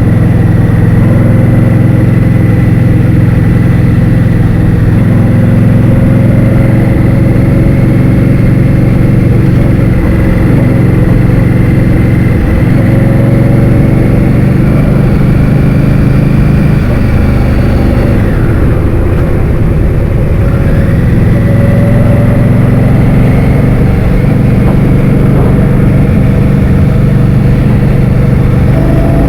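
Scooter engine running while riding, with heavy wind buffeting on the microphone. The engine pitch drops and then climbs again a little past the middle, as the scooter slows and speeds back up.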